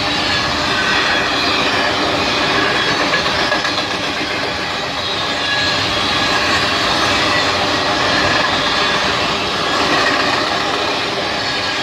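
Cars of a manifest freight train rolling past at trackside. Their steel wheels run on the rails with a loud, steady rolling noise.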